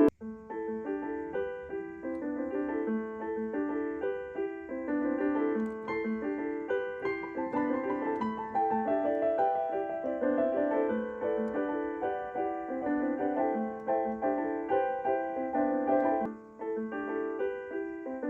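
Portable digital keyboard played with a piano voice: a slow melody over repeating broken chords in the middle register, with a short break about 16 seconds in.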